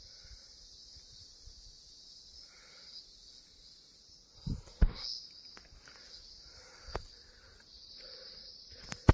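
Steady high-pitched chorus of forest insects, with a few thumps from the phone being moved, the loudest about halfway through.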